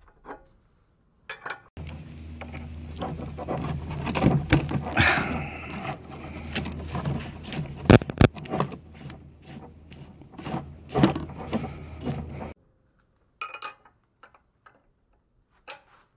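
Hand tools and metal hose fittings being handled: many sharp clicks, clinks and scrapes over a steady low hum that cuts off suddenly about twelve seconds in, followed by a few scattered clicks.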